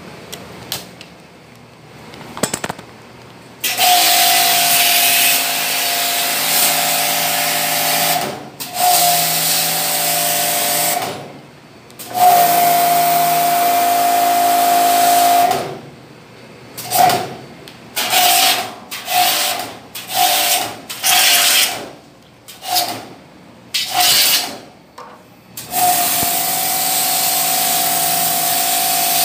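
Handheld steam cleaner spraying: a loud hiss of the jet over the steady buzz of its pump, started and stopped by the trigger. There are several long blasts of a few seconds each, then a run of short bursts about a second apart, then a long blast again near the end.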